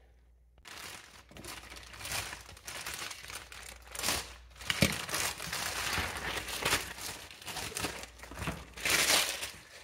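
Thin clear plastic packaging bag crinkling and rustling as it is opened and handled, a few sharp clicks among it.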